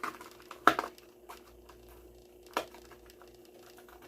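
Hot Wheels blister pack being opened by hand: plastic crackling and cardboard tearing, with a couple of sharp snaps, the loudest about a second in and another near the middle.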